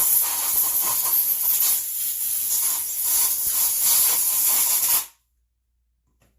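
Pressurised spray hissing loudly and steadily, with small wavers, then stopping abruptly about five seconds in.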